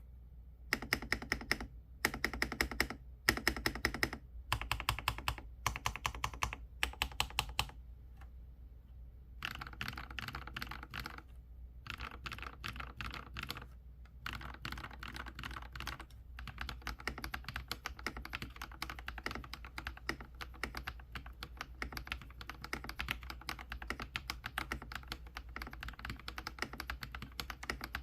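Monstargear Ninja 108 Pro mechanical keyboard, with factory fully lubricated switches, being typed on. For about the first eight seconds come short runs of rapid keystrokes with brief pauses between them; then steady continuous typing takes over.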